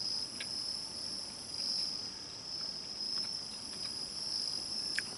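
Chorus of insects, crickets among them, keeping up a steady high-pitched trill that swells and eases slowly. There are a couple of faint ticks, about half a second in and near the end.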